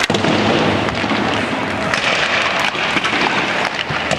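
Ice hockey practice on a rink: a steady scraping hiss of skates on the ice with scattered sharp clacks of sticks and pucks.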